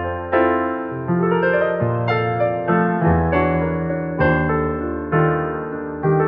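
Electronic keyboard playing an instrumental passage: sustained chords over a bass line, with a new chord struck about once a second.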